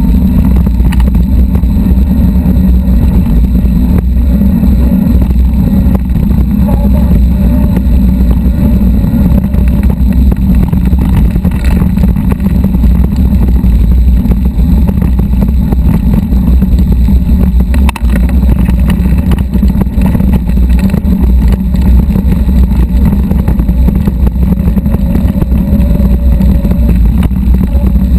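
Loud, steady low rumble of riding noise picked up by a camera mounted on an electric mountain bike: knobby tyres rolling over a gravelly dirt trail, with the frame shaking and wind on the microphone, and a few brief clicks from stones.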